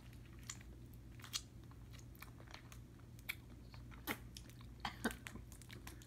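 Mouth sounds of a person eating a sour hard candy: faint, irregular wet clicks and smacks of the candy against tongue and teeth, over a steady low hum.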